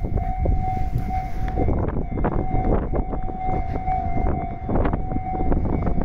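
Railway level-crossing warning bell ringing, a steady repeating electronic tone that warns of an approaching train. A constant low rumble runs underneath.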